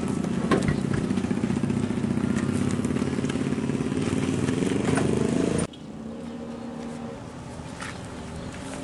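An engine running steadily, with a couple of sharp knocks. A little past halfway it cuts off abruptly to a quieter engine hum.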